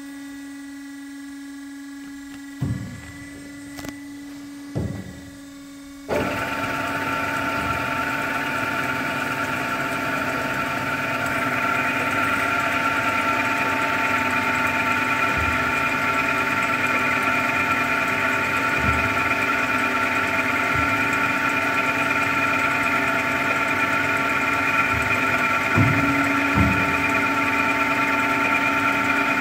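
Bomar STG 260 GA automatic metal bandsaw: a steady machine hum with two low clunks, then about six seconds in the saw's band drive starts abruptly and runs steadily and louder, with occasional low clunks.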